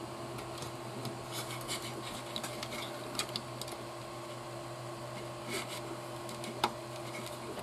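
Scattered light clicks and taps of small hard plastic parts being handled while a servo is fitted into an RC car chassis, over a steady background hum.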